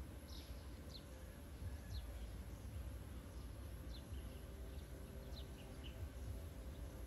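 A bird calling in the background: faint, short high chirps that fall in pitch, repeated about once a second, over a low steady rumble of outdoor noise.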